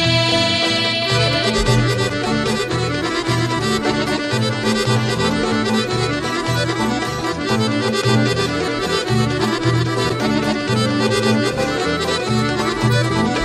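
Folk instrumental music led by an accordion, playing a melody over a steady bass that steps between notes in an even rhythm.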